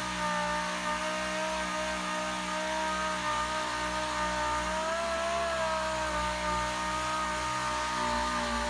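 Dual-action (DA) sander running steadily on body filler on a truck dashboard, knocking down a high spot. It makes a steady whine over a hiss, its pitch wavering slightly as it is pressed into the work.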